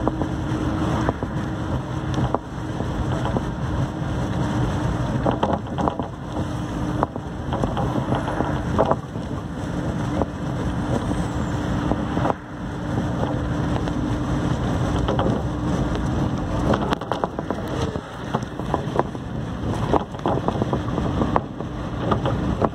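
Cabin noise of a moving road vehicle: steady engine and road noise with a constant hum, and scattered short rattles and knocks.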